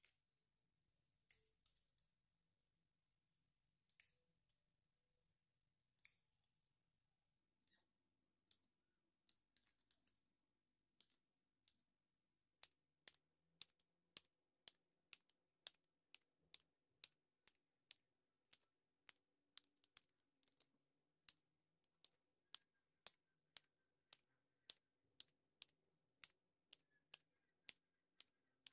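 Scissors snipping soft brioche dough balls, the blades closing with faint, sharp clicks. A few scattered snips come first, then a steady run of about two a second through the second half.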